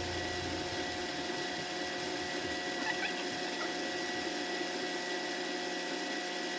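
A small motor or pump running steadily: a constant hum with a few steady whining tones.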